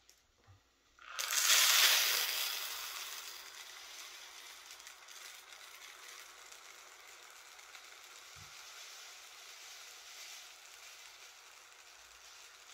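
Aluminum-coated ammonium nitrate pellets poured from a cup through a plastic funnel into a plastic bottle: a hiss of running granules that starts suddenly about a second in, loudest at first, then tapering to a steady trickle.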